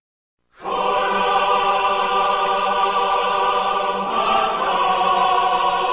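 Heavenly choir sound effect: voices holding one sustained chord, starting about half a second in and shifting slightly about four seconds in.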